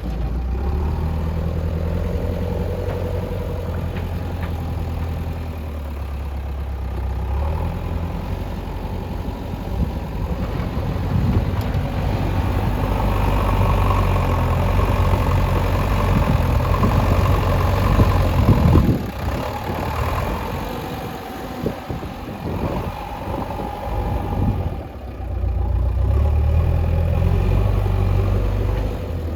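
JCB backhoe loader's diesel engine running, its pitch and loudness rising and falling as it works, with a cluster of sharp knocks a little past the middle.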